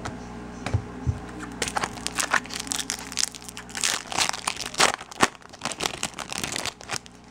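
Foil wrapper of a Bowman Chrome trading-card pack being torn open and handled, giving a dense run of sharp crinkles and crackles. Two soft taps come about a second in, before the crinkling starts.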